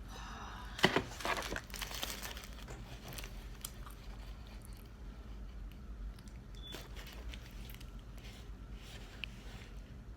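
Fast-food eating sounds: a sharp crack about a second in, followed by a second of crackling and crinkling of food or wrapping, then quieter chewing with small clicks.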